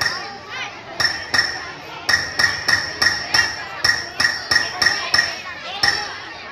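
Metal struck in a steady rhythm, about three ringing strikes a second, with a pause about a second long near the start and a shorter one near the end.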